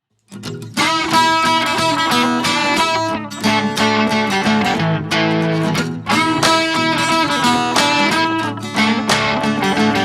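Music led by a strummed guitar, starting about a third of a second in.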